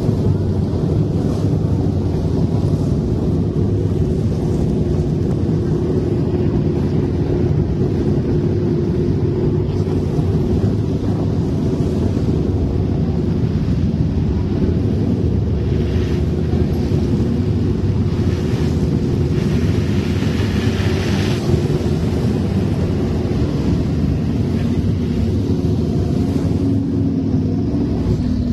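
An engine idling steadily at an even pitch, with no revving.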